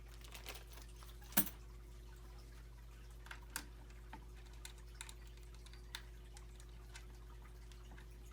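Scattered faint clicks and ticks of a hex key turning M4 screws to fix the power supply to a 3D printer's aluminium frame, with one sharper knock about a second and a half in.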